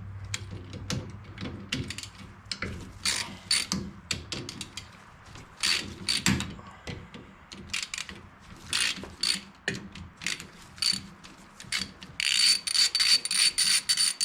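Hand ratchet wrench clicking in short bursts as it loosens and backs off the brake backing-plate nuts. Near the end it gives a fast, even run of clicks with a metallic ring.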